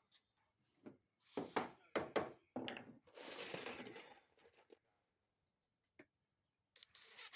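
A few sharp knocks in quick succession, then a rough scraping rustle for about a second: composite deck boards and their hidden fasteners being set and worked into place, with a few more clicks and knocks near the end.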